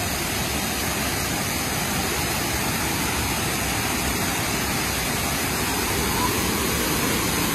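Waterfall pouring into a shallow plunge pool: a steady, full rush of falling water.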